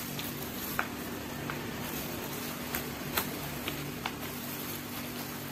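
A person chewing food, with a few short, faint mouth clicks spaced irregularly, over a steady low hum.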